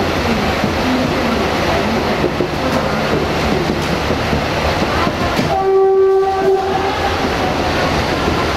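CFR class 230 and class 142 steam locomotives rolling slowly past, a steady rumble with wheel clatter. About halfway through, a single steady signal blast sounds for about a second.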